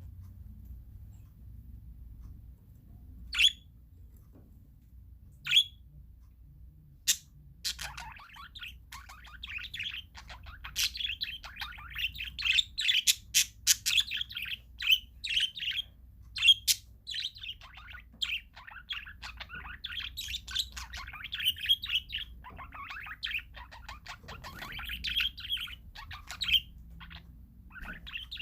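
Parakeets calling: a few sharp single calls, then from about eight seconds in a dense, continuous chatter of quick chirps and warbles.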